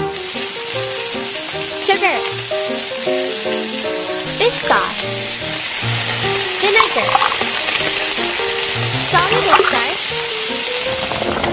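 Steady sizzling of chopped chili and garlic frying in oil in a miniature wok, with a plucky background melody playing over it.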